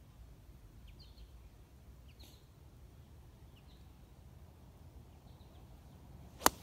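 A driver striking a golf ball off the tee: a single sharp crack near the end, by far the loudest sound. Before it, faint bird chirps over a low outdoor background.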